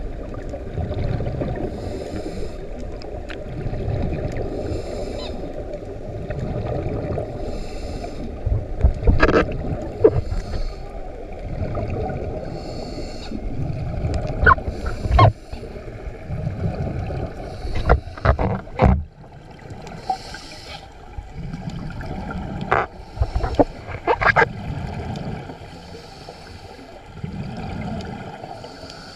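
Underwater sound of a scuba diver breathing through a regulator: a hiss on each inhalation alternating with a rumbling gurgle of exhaled bubbles every couple of seconds. A scatter of sharp clicks and knocks comes through, most of them in the middle.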